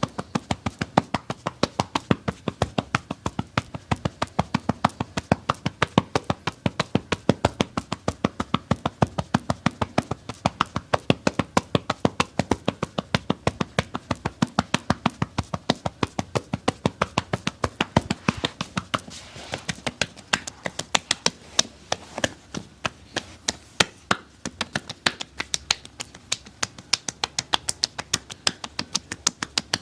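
Massage tapping: hands striking a body in a fast, even rhythm of about four sharp taps a second, the rhythm loosening briefly about twenty seconds in.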